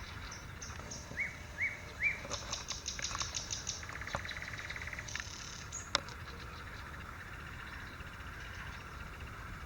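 Wild songbirds singing: three short rising whistles about a second in, then a run of quick high notes and a fast buzzing trill, with the singing thinning out after about six seconds.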